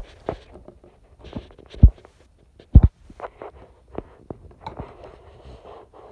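Handling noise: two dull thumps about a second apart among scattered small clicks and rustles, as a phone and a plastic tub of slime are moved about.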